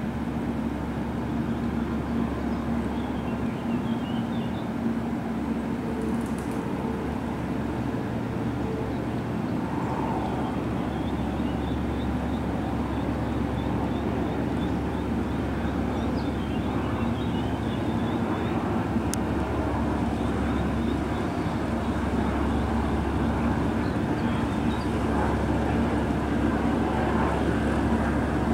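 Steady low diesel drone of a passing inland motor cargo vessel in a coupled convoy, with a constant hum, growing slightly louder near the end.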